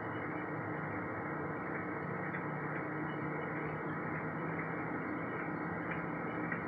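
Steady background noise with a faint low hum, unchanging throughout.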